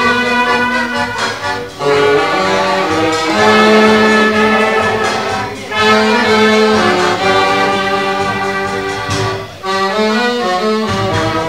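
Polish village folk band (kapela ludowa) playing a tango, with accordion leading and brass alongside. It moves in sustained melodic phrases, with a brief dip between phrases about every four seconds.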